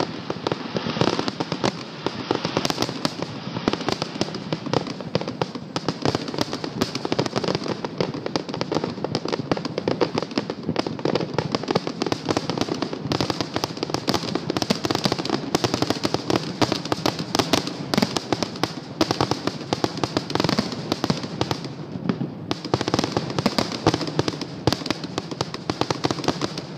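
Fireworks display finale: a rapid, nearly continuous barrage of shell bursts and crackle, the bangs overlapping with only a brief lull a little past three-quarters through.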